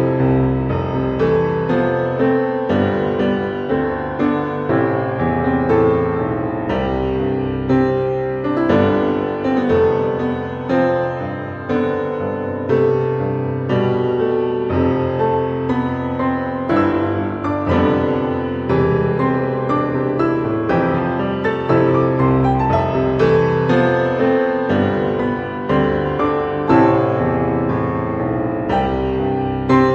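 Background piano music, calm and steady, with notes struck in a continuous flowing pattern.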